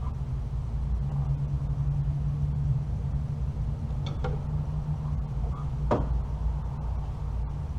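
A steady low hum with a few sharp metallic clicks of hand tools, about four seconds in and again near six seconds.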